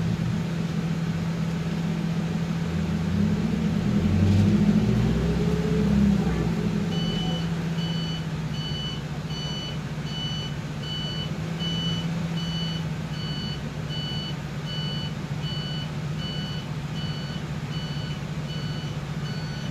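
Mitsubishi Fuso Rosa minibus heard from inside the cabin: the engine runs with a steady hum and rises in pitch between about three and five seconds in. From about seven seconds a reversing alarm beeps steadily, about two high beeps a second.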